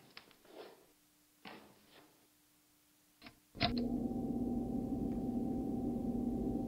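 Knocks and rustles of an electric guitar being handled and strapped on, then about three and a half seconds in a note is struck and rings out through the amplifier, held steady without fading.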